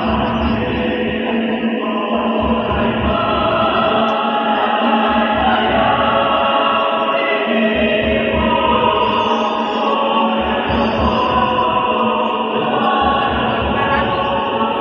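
A choir singing in parts, holding sustained chords.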